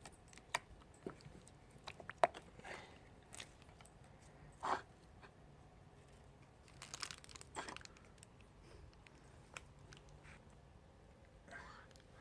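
Slime being squeezed and stretched by hand, giving faint sticky clicks and crackly pops at irregular moments. The sharpest click comes about two seconds in, and a longer crackle about five seconds in.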